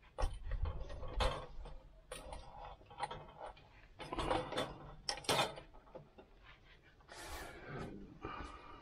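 Irregular clinks, knocks and scrapes of a mild steel skillet and its lid being handled on a stainless steel vegetable-steamer firebox, with a short hiss about seven seconds in.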